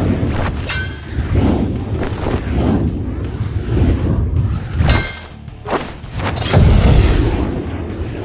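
Action-fight sound effects over music: heavy booms and thuds, with two sharp hits, about a second in and about five seconds in, that ring briefly, and a big low rumbling blast near the end.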